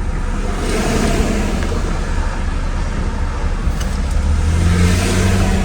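Mercedes R129 SL500 driving, heard from inside the car: steady road noise over the low hum of its V8 engine, which grows louder near the end.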